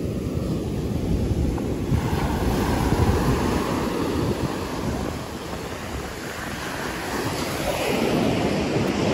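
Ocean surf breaking and washing up the beach, with wind buffeting the microphone; the wash swells a couple of seconds in and again near the end.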